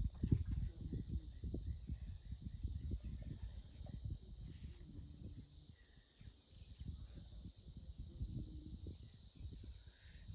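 Steady, high-pitched insect chorus of crickets chirring, over irregular low rumbling noise.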